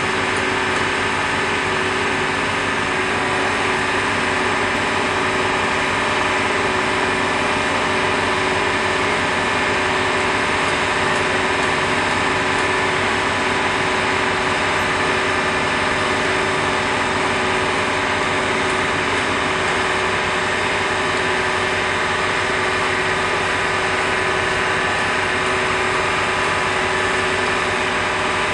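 An engine of site machinery idling, a steady hum with several held tones and no change in speed.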